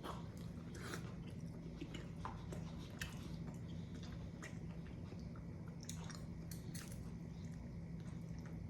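A man chewing and biting into garlic Parmesan chicken wings close to the microphone: scattered wet smacks and small crunches at an uneven pace, over a steady low hum.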